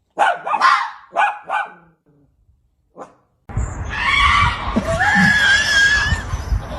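A dog barking three times in quick succession, then once more, faintly. After that a steady noisy background begins, with low thumps and a thin high whine that rises and then holds.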